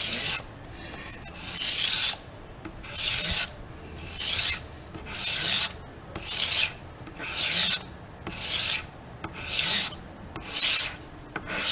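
Knife blade drawn in strokes across a sharpening abrasive to hone the edge: a scraping rasp about once a second, around ten strokes.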